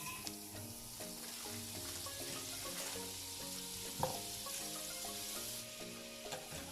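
Butter melting and sizzling in a hot pot, a steady hiss, with one sharp knock of a utensil about four seconds in. Background music plays underneath.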